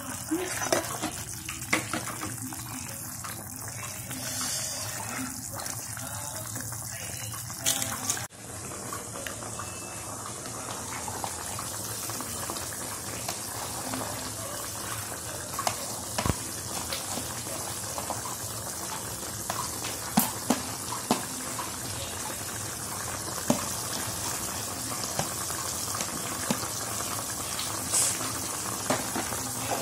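Steady watery hiss of a pan of rib and vegetable soup cooking on the stove, with occasional light clicks and knocks as chopped greens are added to the pan.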